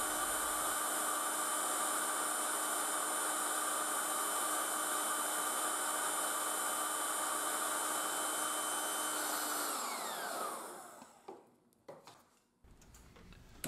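Handheld electric air-mattress inflator running steadily with a pretty noisy whine, blowing air into a wooden model steam engine. About ten seconds in it is switched off: the whine falls in pitch as the motor spins down and fades, leaving a few faint clicks.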